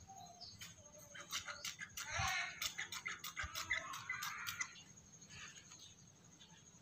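Light clicks and small rattles of a knapsack sprayer engine's carburetor being handled as it is taken off, with a few faint animal calls in the background.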